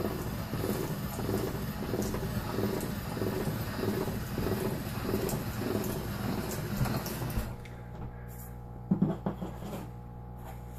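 Hand-cranked pasta machine rolling a sheet of dough: the crank and steel rollers make a rhythmic churning that pulses about one and a half times a second, then stops abruptly about seven and a half seconds in. A couple of brief, louder sounds follow about a second later.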